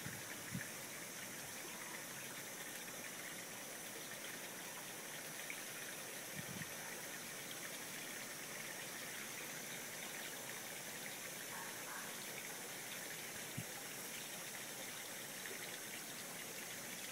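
Steady rush of running water in a goldfish aquarium, with a few faint, low knocks.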